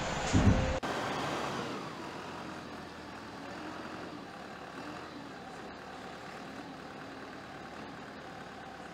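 New Holland tractor diesel engine running loudly, stopping abruptly just under a second in, followed by a quieter steady engine hum.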